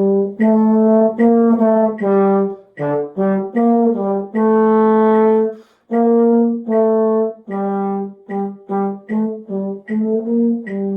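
A wind instrument, which sounds like a brass instrument, playing a simple beginner-band melody, note by note, with one long held note about halfway through. A metronome ticks about once every 0.8 seconds underneath.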